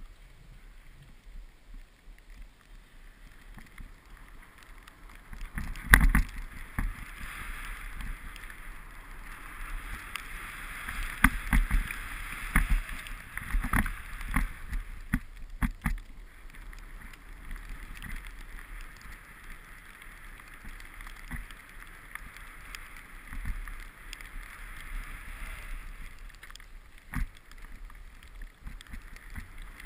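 Snowboard sliding and carving down a snow slope: a rough scraping hiss from the board's base and edges on the snow, with scattered knocks and thumps as the board rides over bumps. The hiss swells about five seconds in and fades near the end.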